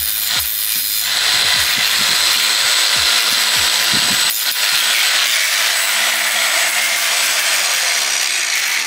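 Angle grinder cutting through a car seat's mounting bolt, running steadily with a short break about four seconds in.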